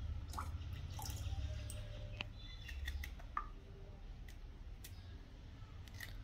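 Faint drips and small splashes as cut pumpkin-flower pieces go into a bowl of water, then soft clicks of a knife cutting through a flower, over a low steady hum.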